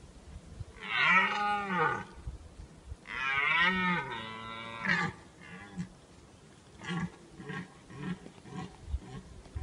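Red deer stag roaring in the rut: two long, drawn-out roars, then a string of short grunting calls.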